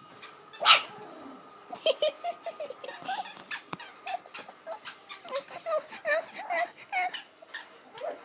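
Puppies yipping and giving high, squeaky little barks in quick succession while playing, with one louder bark just under a second in and sharp clicks in between.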